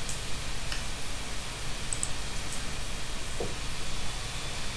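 Steady hiss of microphone and line noise in a pause with no speech, with a few faint clicks.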